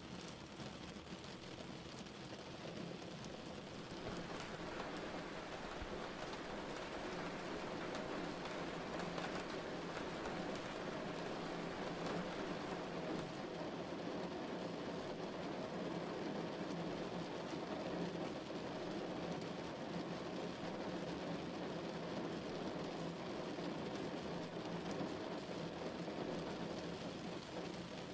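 Steady rain falling, a rain ambience that grows a little louder about four seconds in.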